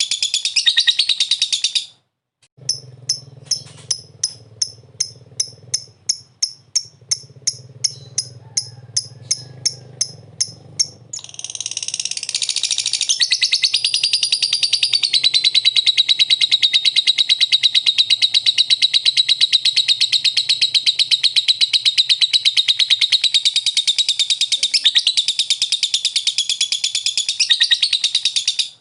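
Lovebird singing, ending on its long, unbroken 'ngekek' chatter. After a brief break about two seconds in comes a run of sharp, evenly spaced chips, a little over two a second, then from about eleven seconds a fast continuous trill with no pause.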